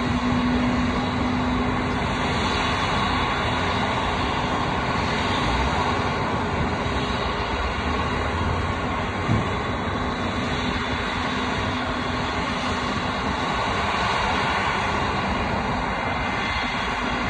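Steady jet aircraft noise across an airport apron, a constant rush with faint high whining tones. A low hum fades out in the first second, and there is one brief click about nine seconds in.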